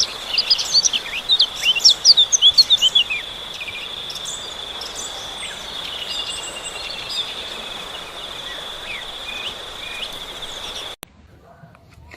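Birds chirping rapidly over a steady, high-pitched insect drone. The chirping is loudest and busiest in the first three seconds, then thins to occasional calls while the drone goes on, and everything cuts off abruptly near the end.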